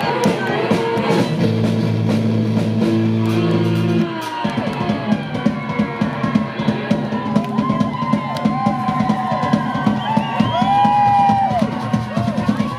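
Live folk-punk band playing: held low notes for the first few seconds, then about four seconds in the drums and cajon take over with a fast, busy beat, and a fiddle plays sliding notes over it.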